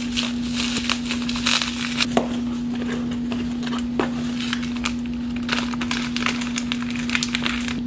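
Bubble wrap and packaging crinkling and rustling as items are unwrapped by hand, with a steady low hum underneath.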